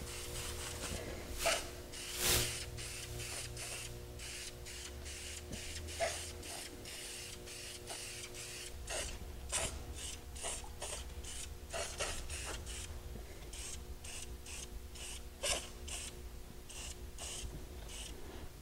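Preval sprayer spraying silver wheel paint in many short hissing bursts, one quick pass after another, a few a little louder than the rest.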